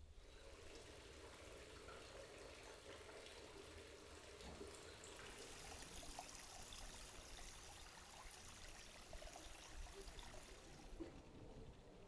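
Faint, steady trickle of water running over stones in a stone-lined stream channel. It grows brighter about five seconds in and fades near the end.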